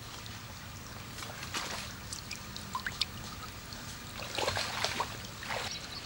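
Cow standing in a shallow stream: irregular splashes and sloshing of water over a faint trickle, busiest about four and a half seconds in.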